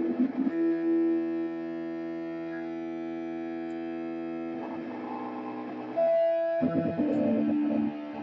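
Electric guitar noise through effects pedals with distortion: a steady droning tone with many overtones held for about four seconds, then rougher shifting noise, a brief high single tone, and a louder rough burst near the end.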